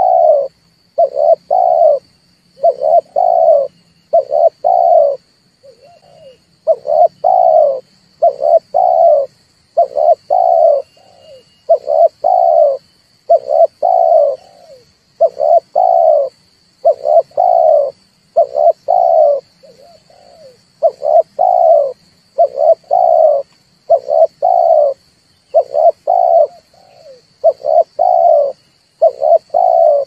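Dove cooing in a long repeated series, about one coo a second with some in quick pairs. This is a recorded call played as a lure to draw doves in for trapping.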